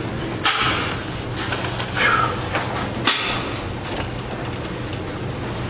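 Two sharp bangs about two and a half seconds apart, each with a short fading tail, over a steady low hum.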